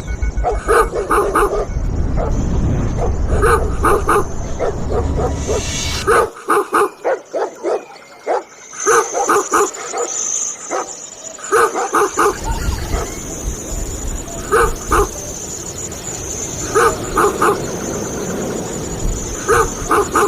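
Dog barking in quick runs of two to four barks, repeating every couple of seconds over a low rumble. The rumble stops for several seconds midway.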